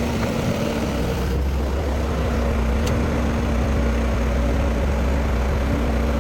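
Heavy diesel engine of a construction machine running steadily with a deep, even hum, with a couple of faint clicks.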